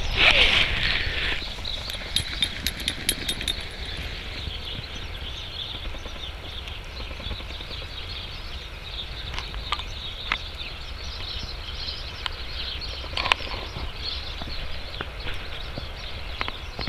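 Wind rumbling on the microphone outdoors, with scattered light crunching of footsteps on snow-covered grass.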